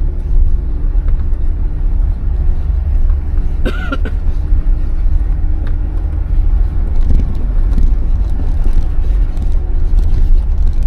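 Jeep engine and drivetrain running at low speed while crawling a rough off-road trail, a steady heavy low rumble, with a brief high-pitched sound about four seconds in.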